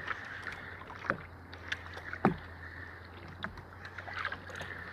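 Spinning reel being cranked to haul up a hooked fish: a few scattered soft clicks and knocks over a faint steady hum and wind hiss.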